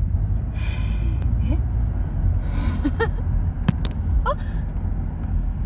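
Steady low rumble of a car driving, heard inside the cabin, with short vocal sounds and breaths over it. Two sharp clicks in quick succession a little past the middle.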